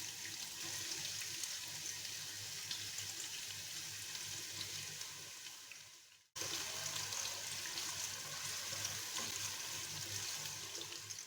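Onion frying in hot sunflower oil in a pan: a steady sizzle with fine crackling. It fades and drops out briefly about six seconds in, then carries on as before.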